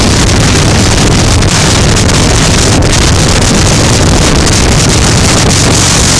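Heavy wind noise buffeting the microphone over a vehicle's engine running steadily at road speed.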